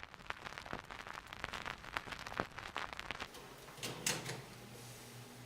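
A run of sharp clicks and crackles. About three seconds in, the low, steady hum of the Lakewood P-223 box fan's electric motor sets in as it starts up for the first time, with a louder click and rustle about a second later.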